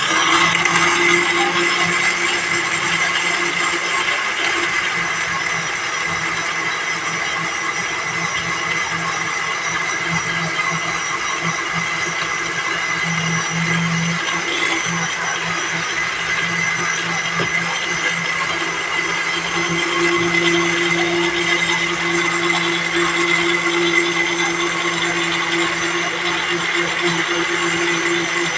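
Electric blender running steadily, its motor whining as it blends a liquid mix of lemon juice and honey.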